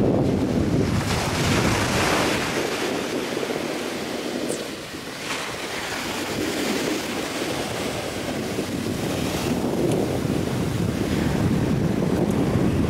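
Ocean surf breaking and washing up a beach, with wind buffeting the microphone. The hiss of the surf swells about a second in and again about five seconds in.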